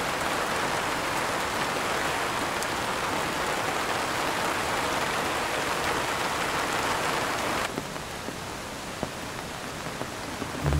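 Heavy rain falling steadily. About three-quarters of the way in it drops suddenly to quieter rain, with a few separate drops ticking.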